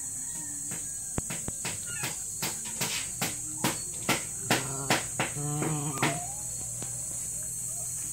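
Steady high-pitched chorus of insects such as crickets, with a run of sharp clicks about two to three a second through the first two-thirds. About five and a half seconds in, a dog gives a short pitched call that bends, a whine or growl.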